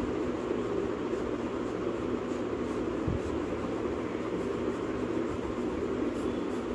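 Steady mechanical hum and rushing noise throughout, like a fan or air conditioner running in a small room, with faint, repeated soft swishes of a brush stroking over drawing paper.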